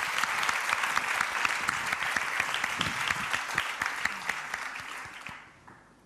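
Studio audience applauding, a dense patter of many hands clapping that fades away over the last second or so.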